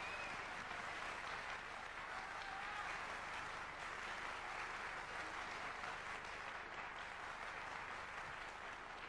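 Audience applauding, steady and easing slightly toward the end.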